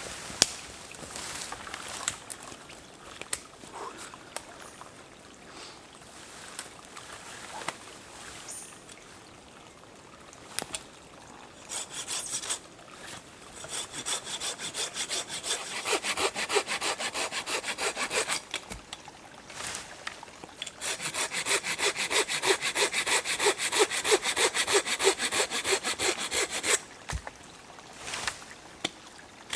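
Hand saw cutting firewood with quick, even back-and-forth strokes, coming in runs with short pauses; the first half holds only scattered clicks and knocks.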